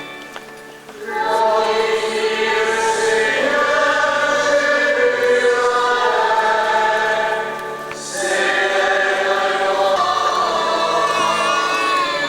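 A choir singing a slow hymn in long, held phrases, with short breaks between phrases just before a second in and again around eight seconds.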